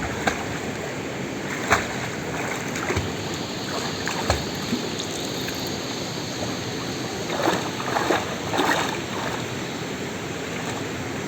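Steady rush of water in a wadi pool, with a few brief splashes about two seconds in and again around eight seconds.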